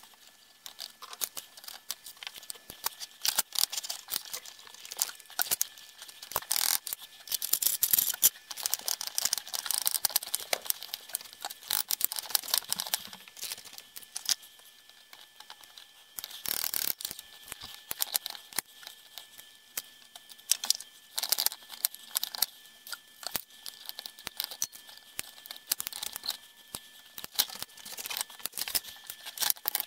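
Rusty cast-iron parts and steel hand tools of a McCormick-Deering sickle blade grinder clinking, tapping and scraping against each other and the workbench as the grinder is taken apart by hand, in irregular clicks throughout.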